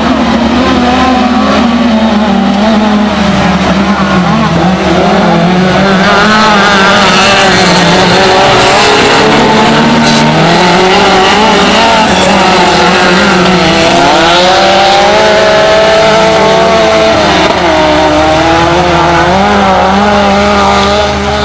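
Engines of several autocross cars racing hard on a dirt track, loud throughout, their pitch rising and falling as the drivers accelerate, change gear and lift for the bends.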